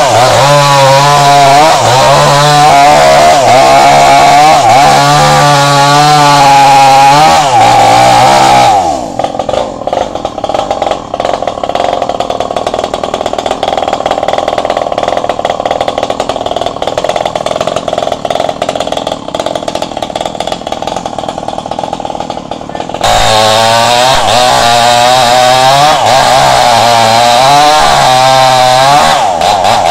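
Yamamax MS 5800 two-stroke chainsaw cutting into the trunk of a large durian tree at full throttle, its pitch rising and falling as the chain bites. For about fourteen seconds in the middle it turns quieter and duller, then comes back loud at full throttle.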